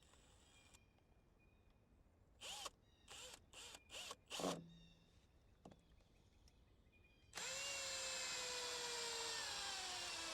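Electric drill driving a screw into a wooden cover board: a run of about three and a half seconds near the end, the motor's pitch slowly dropping as the screw bites in, then it stops. Earlier come a few brief short sounds.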